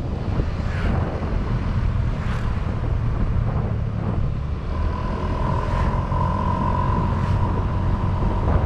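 Honda Vario 125 scooter's single-cylinder 125 cc engine running under way through a KZR Puresound exhaust, a steady low rumble. A steady high whine joins in about five seconds in.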